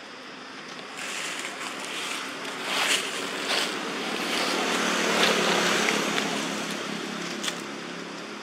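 A motor vehicle passing: a rushing noise swells over a few seconds and slowly fades, with a low engine hum underneath in its second half. A few sharp ticks sound near the middle.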